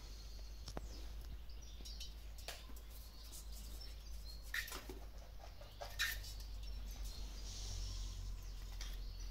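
Kittens scuffling and playing among garden hoses on a tiled floor: light knocks and scrapes, with two sharper taps about four and a half and six seconds in. Faint high chirping sounds behind.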